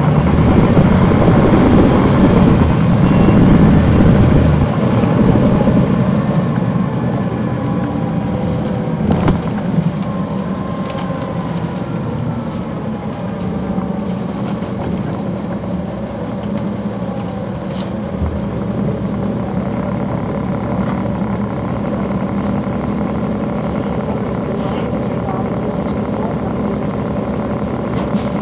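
Caterpillar C13 diesel engine of a NABI 416.15 transit bus, heard from the rear seats inside the bus. It runs loudest for the first five or six seconds, then settles to a lower, steady running. There is a single sharp clack about nine seconds in.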